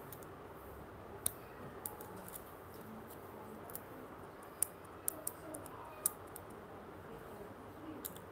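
Faint background hiss with several short, sharp clicks scattered irregularly through it.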